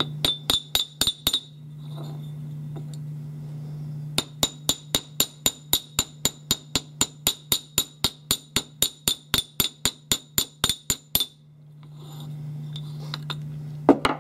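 Small hammer tapping the head of a small steel gun screw held on a metal block, peening its rough edges smooth. Light metallic taps with a ringing click: a short quick run, a pause of a few seconds, then a long even run of about thirty taps at some four a second, with one louder knock near the end.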